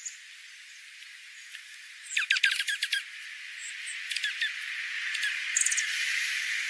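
Small songbirds twittering. A quick run of short chirps comes about two seconds in, and a few more calls follow around four and five and a half seconds, over a steady high hiss.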